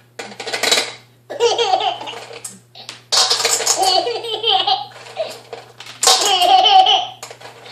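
A baby laughing in four bouts of high-pitched laughter, the longest around the middle, over a steady low hum.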